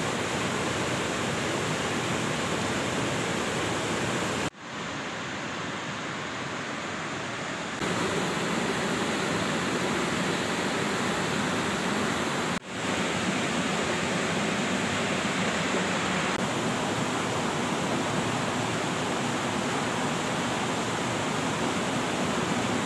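Rushing water of a fast, rocky mountain river: a steady noise, broken by two brief cuts about four and a half and twelve and a half seconds in.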